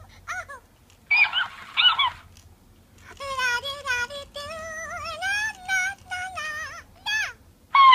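Furby toy chattering and singing in its high-pitched electronic voice: a few short falling chirps, two brief bursts about a second in, then a longer sing-song run of stepping pitches from about three seconds in.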